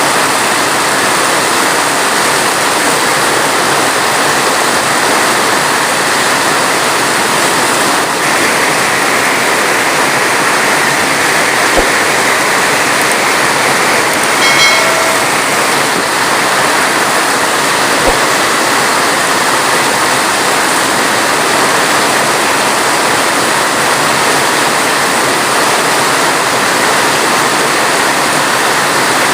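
Heavy rain falling steadily, a dense even hiss. A brief, faint pitched tone is heard about halfway through.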